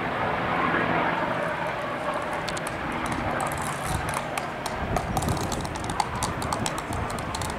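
Bell LongRanger helicopter flying past, a steady drone of its turbine and two-bladed main rotor, with a run of sharp high clicks setting in about two and a half seconds in.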